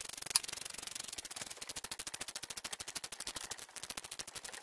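Socket ratchet wrench clicking rapidly and steadily as it runs a Time-Sert thread-repair insert down into a stripped head-bolt hole in a Toyota 2.4L aluminum engine block. One louder click comes about half a second in.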